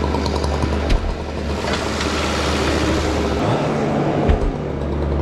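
An engine running steadily at a low pitch, with scattered knocks and clicks; the hum drops out briefly a little past halfway.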